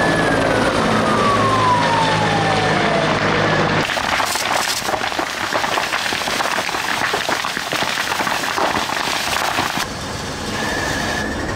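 Firefighting helicopter passing overhead, its engine and rotor steady while a whine falls in pitch as it goes by. After about four seconds this changes to a fire hose spraying hard into burning scrub, with the vegetation crackling and popping. Near the end a steady high whine starts, from a fire engine's pump.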